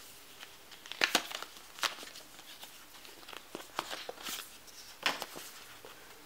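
Paper packaging rustling and crinkling as the iPhone 5s instruction leaflet packet is pulled out and opened by hand, with sharp crackles about a second in, near two seconds, and again around four and five seconds.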